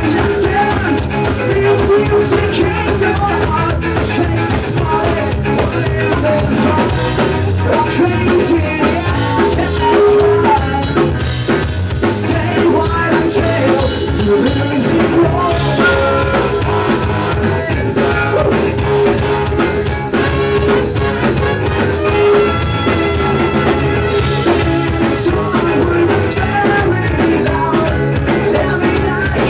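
Ska-punk band playing live, with drum kit, instruments and singing.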